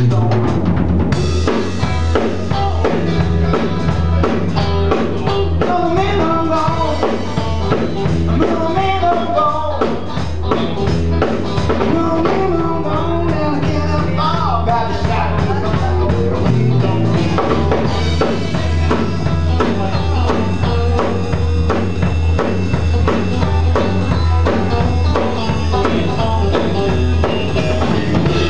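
Live blues-rock band playing at full volume: electric guitar, electric bass and a drum kit keeping a steady beat.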